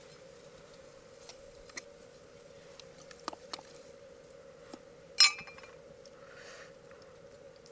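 A few light clicks and one sharp clink with a short ring about five seconds in, from hard objects knocking together, over a steady low hum.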